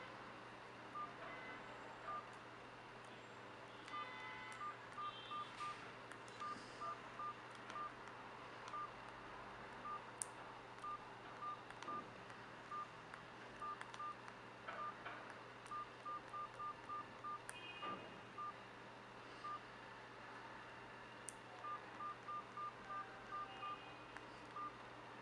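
Keypad tones of a C102 cartoon mobile phone: short beeps, all at the same pitch, as its keys are pressed, sometimes singly and sometimes in quick runs of several.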